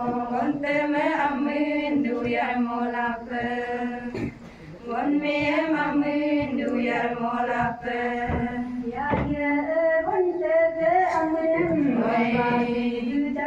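A group of women singing a song together from song sheets, holding long notes, with a brief break about four seconds in before the singing resumes.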